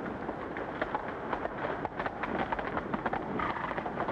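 Hooves of several horses on a dirt road, a dense irregular clatter of hoofbeats, under the hiss of an old film soundtrack.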